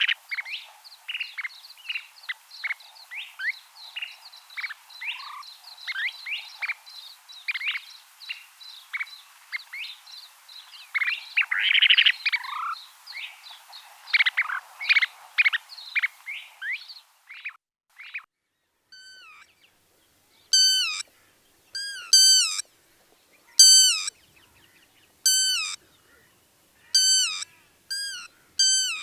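Rainforest ambience: a dense chorus of many short chirping animal calls, birds and frogs, over a soft hiss, which cuts off about two-thirds of the way through. After a brief pause a single bird repeats a clear falling call, often in pairs of notes, roughly every second and a half.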